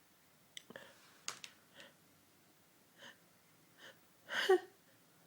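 A woman's short sniffs and catching breaths during a red-wine sneezing fit, about half a dozen spread out, then a longer, louder gasping inhale near the end: the build-up to a sneeze.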